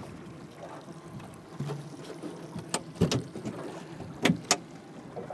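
A few sharp knocks and thumps from a storage hatch lid on an aluminium boat's raised rear deck being lowered shut and handled, in two pairs about a second and a half apart. Under them is a low, steady background of wind and water.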